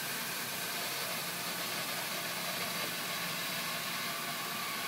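Steady hiss of excess CO2 gas venting from the pressure relief valves of a freshly inflated liferaft.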